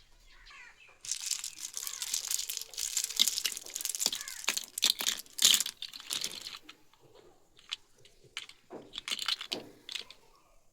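Plastic packaging crinkling and tearing for several seconds, followed by scattered light clicks and taps.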